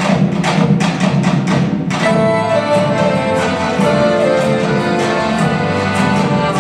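Albanian folk dance music: a quick, steady drum beat alone, then about two seconds in a melody on held notes comes in over it.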